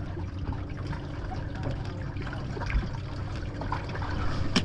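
Water trickling and sloshing, with a steady low hum underneath and small scattered ticks.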